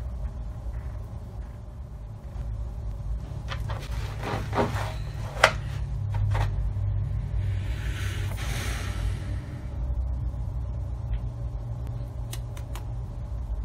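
Light clicks and rattles from a wire crate, the sharpest about five and a half seconds in, and a brief rustle of bedding about eight seconds in, as a cat moves about inside. A steady low rumble runs underneath.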